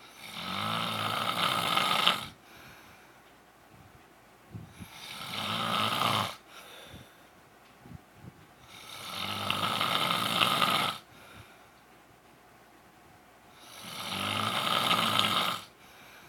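A man snoring in his sleep: four loud snores, each lasting about two seconds, coming roughly every four to five seconds with quiet breathing in between.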